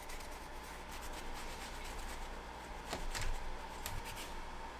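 Rag soaked in lacquer thinner rubbing over a motorcycle engine's gasket surface, cleaning off old gasket residue. The rubbing is faint, with a couple of light knocks about three and four seconds in.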